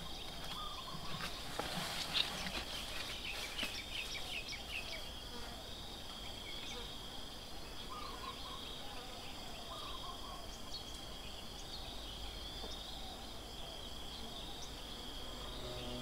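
A steady, high-pitched insect trill runs without a break. Scattered short chirps sound over it in the first few seconds, with a few fainter ones later.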